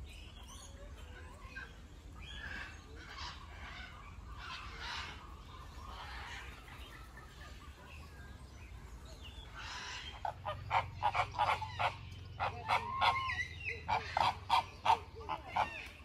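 Birds calling: scattered soft calls, then about ten seconds in a loud, quick run of short, sharp calls, several a second.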